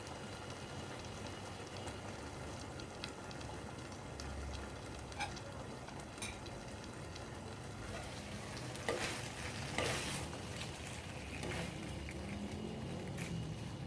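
Boneless chicken thighs sizzling as they fry in a pan: a steady hiss with small crackles, and a few louder pops and scrapes about two-thirds of the way through.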